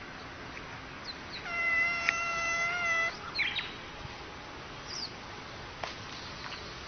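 Domestic cat giving one long, steady yowl, held for about a second and a half, as it faces off with a snake. A few short high chirps follow.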